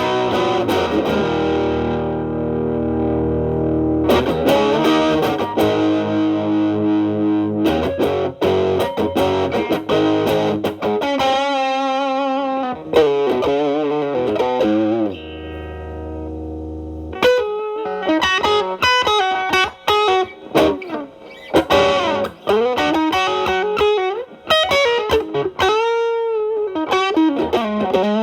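Telecaster through an MXR Distortion+ set around 10 to 11 o'clock, stacked with a Boss SD-1 as a gain boost into a Marshall Valvestate's clean channel. It plays distorted, sustaining chords, then bent lead notes with vibrato. About halfway there is a brief gap where only a low amp hum remains, before more bluesy single-note lines with bends.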